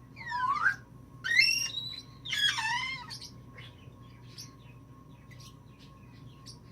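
Timneh African grey parrot giving three whistled calls with sliding pitch in the first three seconds, followed by faint short chirps.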